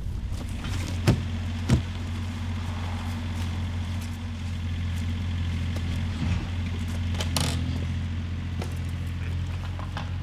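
Steady low engine hum, like a motor vehicle idling, with two sharp clicks about a second in and a brief rustle around seven seconds.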